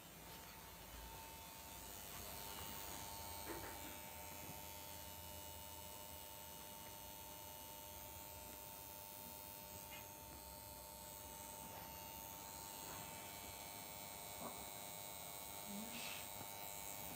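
Faint, steady electrical hum with a high hiss, and a few faint, light ticks scattered through it.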